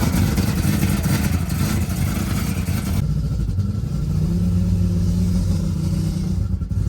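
A loud car engine running, with a harsh hiss over it for about the first three seconds. The hiss then drops away, leaving a steady engine note.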